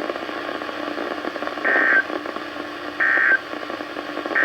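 NOAA Weather Radio receiver sounding three short bursts of SAME digital data tone, about a second and a half apart, over steady radio hiss with a low hum. Coming straight after the spoken warning, they are the end-of-message code that closes the alert.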